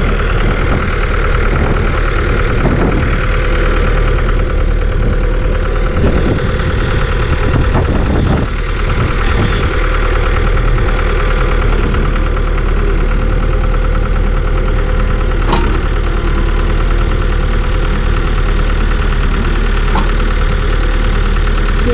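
Skid-steer loader's diesel engine running steadily at a constant speed, with a few short knocks and clanks now and then.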